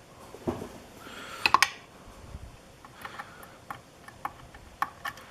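Light metal clicks and ticks of tweezers handling the small pins and springs of a disassembled lock: a quick cluster about one and a half seconds in, then single ticks about every half second.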